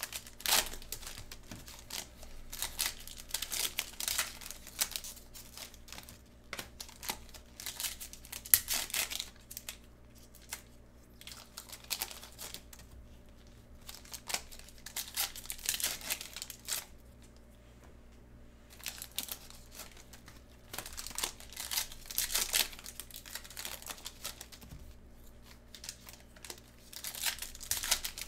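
Plastic wrapping and foil wrappers of trading card boxes and packs crinkling and tearing as they are opened by hand, in irregular bursts with short pauses.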